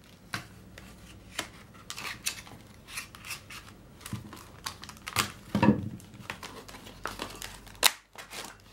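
Clear plastic blister pack being cut open with a utility knife and pried apart, a string of short clicks, crackles and crinkles, loudest about five and a half seconds in, with a sharp snap of plastic near the end.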